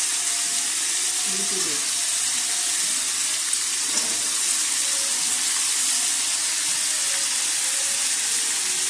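Vegetables frying in hot oil in a metal kadai, a steady sizzling hiss; Malabar spinach seed clusters go into the pan partway through and the sizzle carries on.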